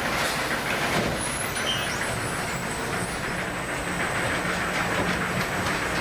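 A fishing vessel's engine and deck machinery running steadily, with a low hum under a constant rattle.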